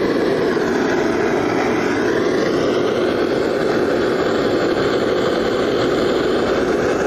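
Steady, even rushing noise from a Newmac wood furnace burning with its firebox door open, freshly fed fuel catching.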